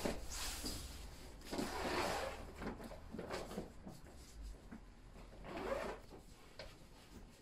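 Rustling and rubbing of woven plastic storage bags and plastic-wrapped bedding being rummaged through and unzipped, in irregular bursts.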